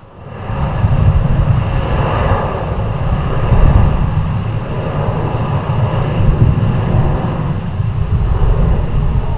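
Jet airliner's engines running as it passes close by: a loud steady rumble with a faint whine above it, coming in sharply about half a second in.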